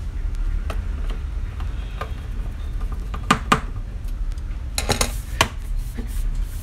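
A few sharp clicks and clinks of handling as a Dell Inspiron laptop's bottom cover is worked on and pressed down onto the chassis: a close pair about three seconds in and two more about a second and a half later, over a steady low hum.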